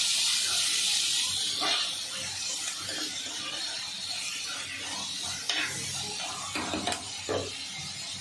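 Chopped tomatoes and onions sizzling in oil in a clay pot (mann chatti) while being stirred; the sizzle is loudest in the first second or so and then dies down. Several short scrapes of the stirring utensil against the clay pot follow, the last near the end.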